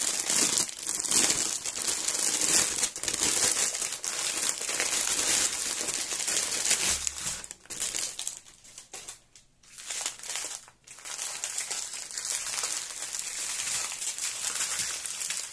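Plastic packaging crinkling and rustling as it is handled, with scattered crackles and a few brief pauses about halfway through.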